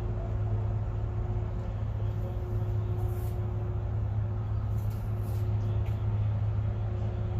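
Deep, steady drone of a large cargo ship's engine as the ship passes, with a fainter steady hum above it.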